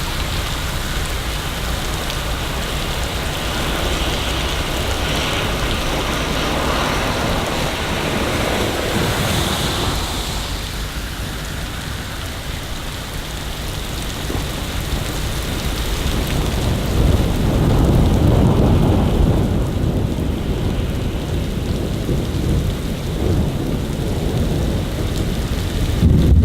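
Steady rain hissing, with a low rolling rumble of thunder that swells about two-thirds of the way through and again near the end.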